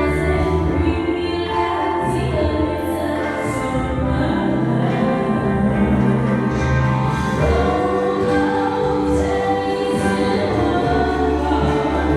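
A recorded song playing continuously: a lead voice singing over backing vocals and a steady bass line.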